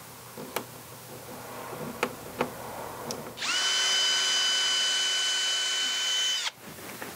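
Cordless drill drilling a pilot hole for a screw: a few light handling clicks, then a steady motor whine that starts suddenly a few seconds in, runs for about three seconds and cuts off.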